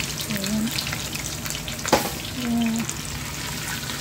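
Sardines and fermented black beans sizzling in hot oil in a wok while a spatula stirs and scrapes through them, with many small crackles and clicks and one sharp knock about two seconds in.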